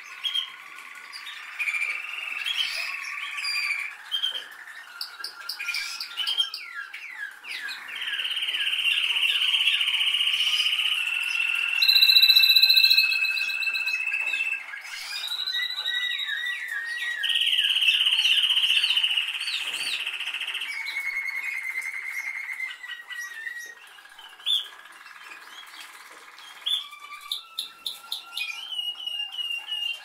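Domestic canary singing a long, unbroken song of rapid trills and rolls, with several held ringing notes. The loudest and highest passage comes about twelve seconds in.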